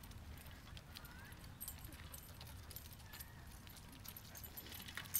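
Bicycle being towed along by two dogs: a low steady rolling rumble with scattered, irregular light clicks and ticks.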